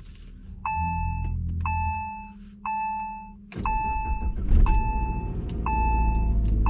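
Saab 9-5 Aero's turbocharged four-cylinder engine cold-started, heard from inside the cabin: a low hum, then the engine catches about three and a half seconds in and keeps running. A warning chime beeps about once a second throughout.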